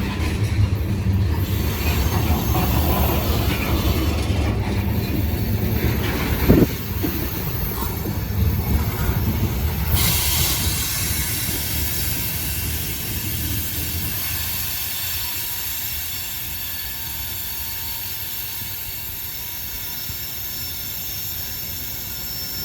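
Loaded ethanol tank cars of a long freight train rolling past, with heavy wheel and rail rumble. There is a loud clank about six seconds in, and a steady high-pitched sound comes in at about ten seconds. The rumble fades over the last third as the end of the train moves away.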